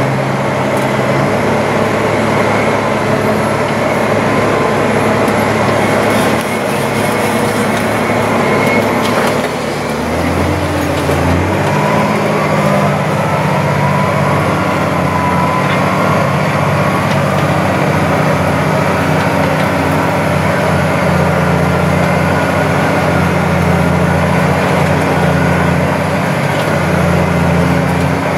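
Deutz tractor engine running steadily under load, heard from inside the cab while pulling a stubble cultivator. The engine note changes about ten seconds in.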